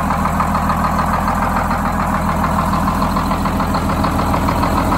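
The 1948 Greyhound Silverside bus's Detroit Diesel 6-71 two-stroke diesel engine idling steadily.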